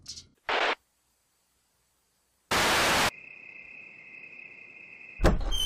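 Two sudden bursts of TV-style static, a short one and a louder half-second one about two and a half seconds in, with silence between them. After the second burst comes a faint, steady night-time cricket chirring.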